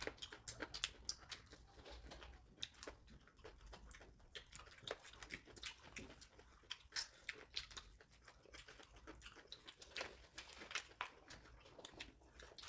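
Faint chewing and mouth sounds of people eating fried chicken and tteokbokki: many small, scattered clicks and smacks.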